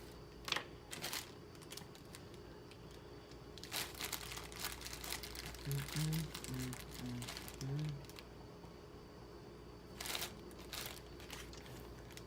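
Packaging crinkling and rustling as it is handled, in two main stretches, with a few sharp clicks near the start.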